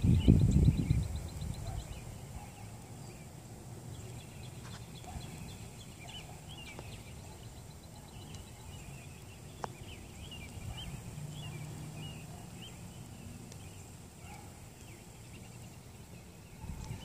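Small birds chirping in many short, scattered calls. A low rumble on the microphone is the loudest sound in the first second.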